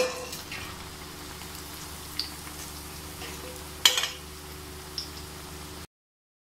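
Egg-coated chicken kababs deep-frying in hot oil in an iron kadai, a steady sizzle. Metal tongs and a slotted spoon clink against the pan at the start and again about four seconds in as the kababs are lifted out, with lighter taps between. The sound cuts off abruptly shortly before the end.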